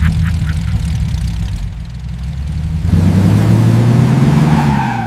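An engine running with a steady low drone. It eases off about two seconds in, then picks up again with a slight rise in pitch, and cuts off abruptly near the end.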